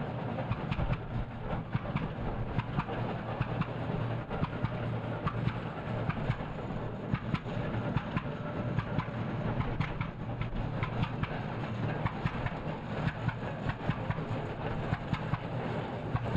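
Engine of a 1913 Case 30-60 tractor running as the tractor drives slowly. It gives a steady low hum with regular sharp exhaust beats, several a second.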